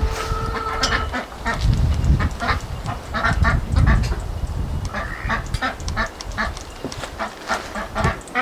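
Domestic waterfowl calling over and over in short, repeated calls, over a low rubbing noise.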